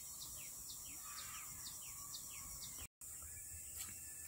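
A bird repeating a short falling chirp about four times a second, faint, over a steady high-pitched hiss. It breaks off abruptly about three seconds in, followed by a few faint clicks.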